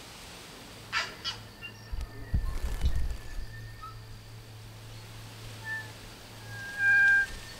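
Night bush ambience over a steady low hum: two sharp clicks about a second in and low thuds around two to three seconds, then short whistled bird notes, the loudest a clear held note near the end.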